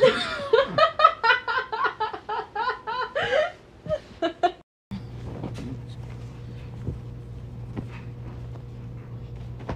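A young woman laughing hard in quick repeated bursts, several a second, for about three and a half seconds. The sound then cuts out briefly and gives way to a steady low hum with a few faint clicks.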